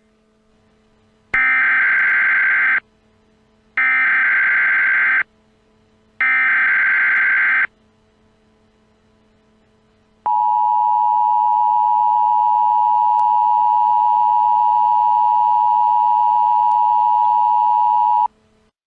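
Emergency Alert System tones: three identical bursts of digital SAME header data, each a harsh, buzzy warble about a second and a half long, followed by the steady two-tone EAS attention signal held for about eight seconds.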